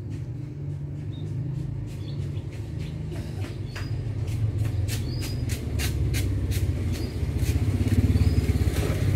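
A motor engine running with a steady low rumble that grows louder over the last couple of seconds, with short sharp chirps and clicks ticking over it.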